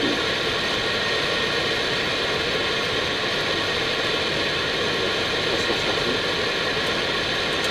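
Steady rushing noise inside the cockpit of an Airbus A319 on approach, airflow and engine noise with a few faint steady tones, even and unchanging.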